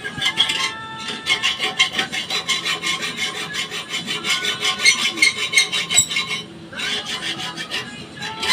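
Rapid repeated rasping scrapes, several strokes a second, with short breaks about a second in and again near the end.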